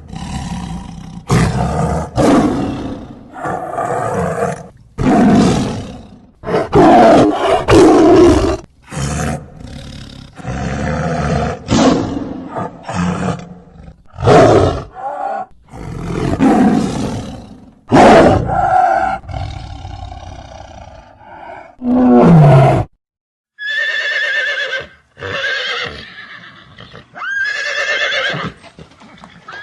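A series of loud animal roars, one after another, each about a second long. After a brief silence near the end, different calls follow with a clearer rising and falling pitch.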